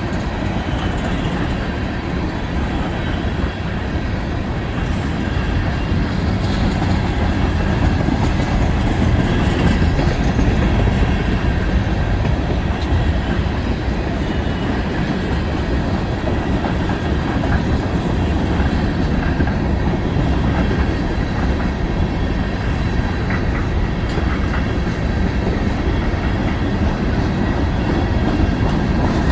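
Cars of a long mixed freight train rolling past at speed: a steady, unbroken noise of steel wheels on rail, heaviest in the low end.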